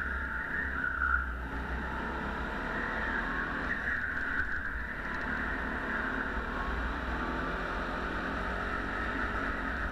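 Go-kart running steadily at speed around a track, heard from on board the kart with a low rumble underneath.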